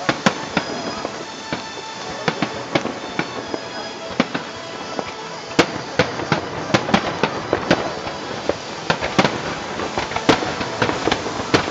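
Aerial fireworks shells bursting in quick, irregular succession: sharp bangs over a constant crackle, coming thicker and louder in the second half.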